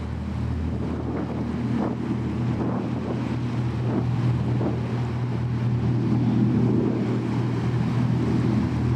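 High-speed passenger ferry's engines droning steadily at a low pitch as it passes, slowly growing louder, over the rush of its wash and wind on the microphone.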